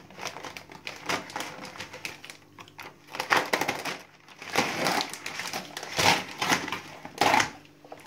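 Plastic wrapping of a store-bought sponge cake crinkling and crackling as it is slit with a knife and pulled off, in an irregular run of crackles with louder ones about three, four and a half, six and seven seconds in.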